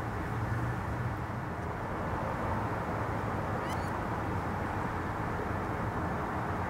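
Steady low background rumble with a faint hum, and a brief faint rising chirp about four seconds in.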